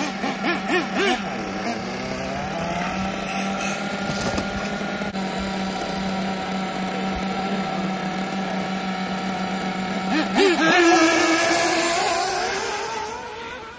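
Several 1/8-scale RC buggies racing, their motors revving up and down in pitch. A loud close pass comes about ten and a half seconds in, then the sound fades away near the end.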